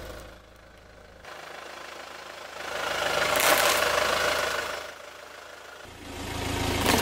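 Car tyre rolling slowly onto small round candies on concrete, the tyre noise rising and falling about three to four seconds in, with the car's engine running low underneath. Near the end the engine hum grows again as the car creeps forward.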